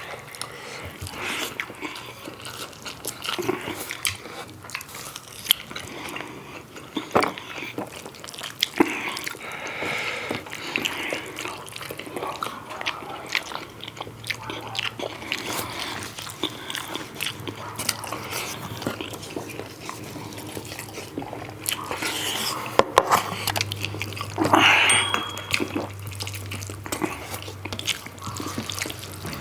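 People chewing and biting through tough pork curry with rice, with wet mouth noises and scattered sharp clicks all through.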